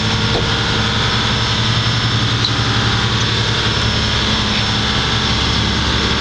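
Fishing boat's engine running at a steady speed: an unbroken low hum under a constant hiss of wind and water.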